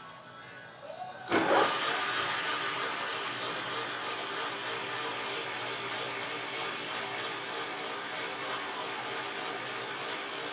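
A small electric-motor machine starts with a sudden loud surge just over a second in, then runs steadily with a high whirring hum.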